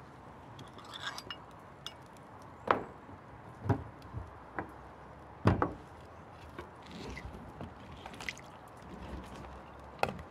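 Hard knocks and clinks of a solid ice ball being handled, turned and set down on a cloth-covered table, along with a hammer being laid on the tabletop; four louder knocks spaced over several seconds, with lighter clicks between.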